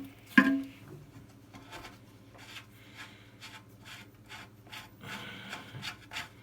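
Clicks, knocks and scraping of hand work on the toilet tank's fill valve, loosening its bottom locknut, with one sharp knock about half a second in.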